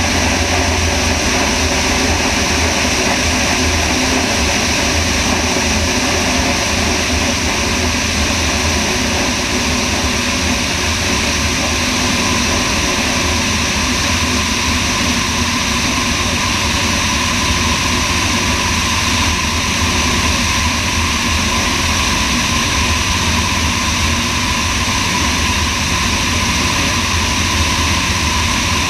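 Sonex light aircraft in flight: its single piston engine and propeller running steadily, mixed with a constant rush of air over the wing-mounted camera's microphone. The sound stays even throughout, with no change in power.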